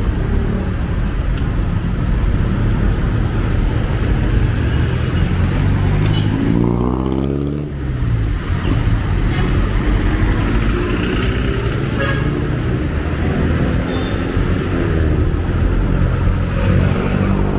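City street traffic: engines of vehicles running and passing close by. About seven seconds in, one passing vehicle's engine note falls in pitch as it goes by.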